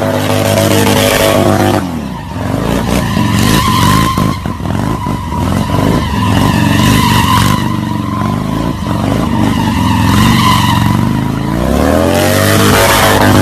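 A vehicle engine running hard at steady high revs, falling away about two seconds in. A steady high squeal with rapid crackles follows, typical of tyres skidding. Near the end the engine revs climb back up to a steady high pitch.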